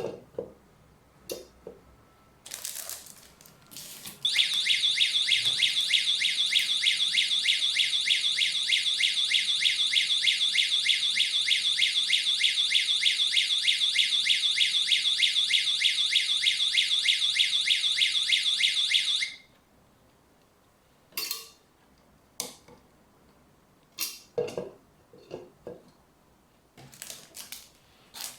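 Wireless alarm siren of an infrared beam-sensor set sounding a loud, rapidly pulsing electronic tone. It starts a few seconds in and cuts off suddenly after about fifteen seconds. Short clicks and knocks of handling come before and after it.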